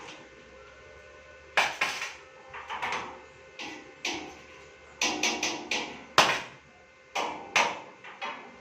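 An irregular run of sharp knocks or taps, some in quick clusters, each with a short ring, starting about one and a half seconds in.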